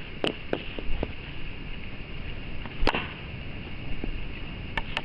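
A few sharp knocks and cracks over a steady hiss. A cluster comes in the first second, the loudest strike about three seconds in, and two more near the end.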